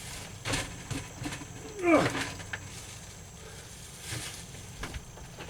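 Chunks of built-up ice being worked loose and handled in an RV refrigerator: a few knocks, and about two seconds in a short squeal that falls steeply in pitch.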